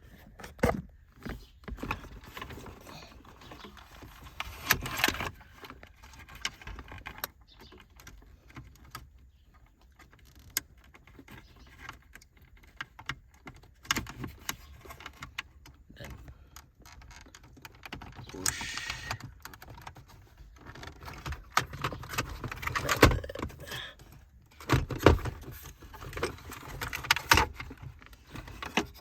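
Irregular clicks, taps and light rattles of plastic dashboard parts being handled and pushed into place during reassembly of a car's AC control panel, with clusters of sharper knocks about five seconds in and again over the last ten seconds.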